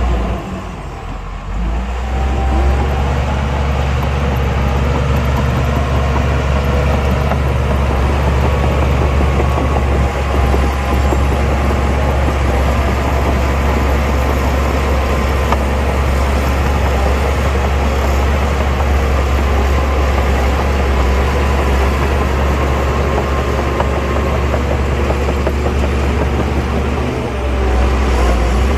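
Heavy diesel engine of earthmoving machinery running steadily, with a deep, loud drone that dips briefly about a second in.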